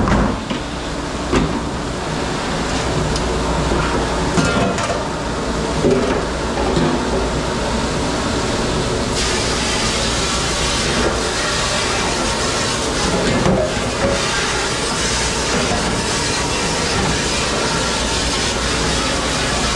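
Steady, loud rushing hiss of water and machinery in a commercial dish pit, with scattered clinks and knocks of dishes and steel pans; the hiss grows brighter about nine seconds in.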